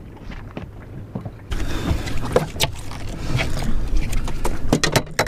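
Water splashing and knocking close beside a small boat as a big jack crevalle thrashes at the surface, with wind on the microphone. The noise starts suddenly about a second and a half in, with many sharp knocks and splashes.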